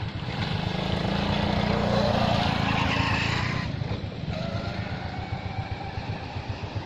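A motor vehicle passing, rising to its loudest about two seconds in and fading by about four seconds, over a steady low rumble.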